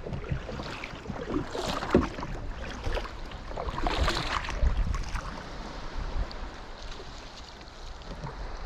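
Small knocks and rustles of gear in a fishing kayak floating on calm sea water, over light wind on the microphone; the loudest knock comes about two seconds in.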